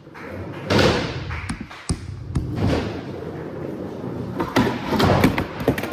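Skateboard rolling on a concrete floor, with a series of sharp clacks and thuds from the board, clustered and loudest near the end.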